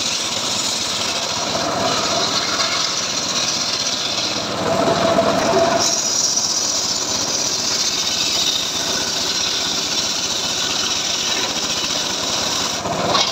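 Large circular saw blade on a homemade engine-driven saw bench ripping a log lengthwise, the engine running steadily under load. The cutting grows a little brighter and harsher from about halfway through.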